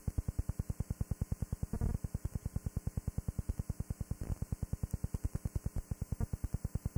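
Rapid, even electrical buzz pulsing about eight times a second, like signal interference on a blank stretch of tape, with two brief louder crackles in the middle.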